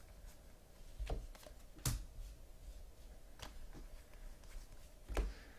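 Trading cards being handled: four light taps and clicks as cards and packs are put down on the table, the second one the loudest.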